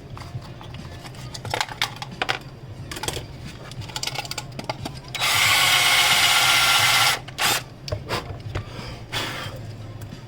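Power drill running for about two seconds near the middle, drilling a hole, with scattered clicks and knocks of handling before and after it.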